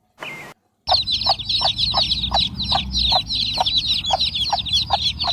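A brood of chicks peeping constantly in many overlapping high chirps, with a hen clucking steadily about three times a second. It starts about a second in.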